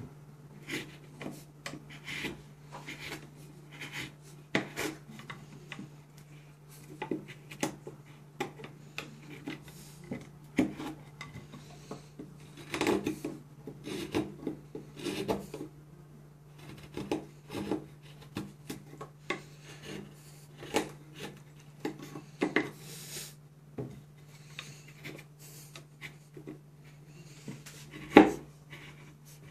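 Carbon-steel Mora Companion MG knife cutting into a pine bar: short scraping strokes of the blade through the wood, irregular, about one or two a second, with a louder stroke near the end. A steady low hum runs underneath.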